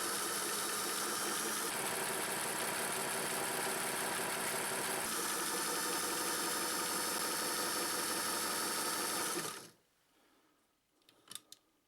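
Singer 317K sewing machine running steadily on its internal motor, sewing a zigzag stitch, then stopping abruptly about ten seconds in. A couple of light clicks follow near the end.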